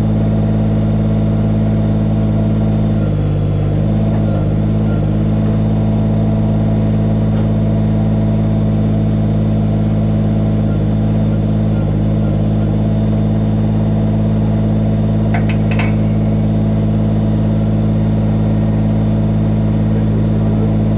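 Kubota BX25's three-cylinder diesel engine running steadily, its pitch dipping briefly about three seconds in and again around twelve seconds, with a couple of short clicks about fifteen seconds in.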